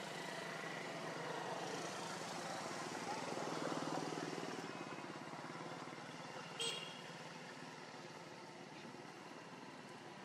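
A motor vehicle passing, its engine hum swelling to a peak about four seconds in and then fading, over steady outdoor noise. A short high chirp comes near seven seconds in.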